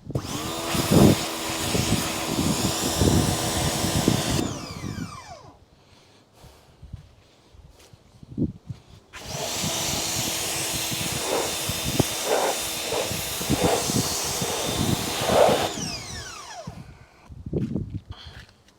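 Electric pressure washer motor running in two bursts, one of about four seconds and a longer one of about seven seconds, each ending with a falling whine as the motor winds down; it is spraying road grime and grease off a plastic mudguard.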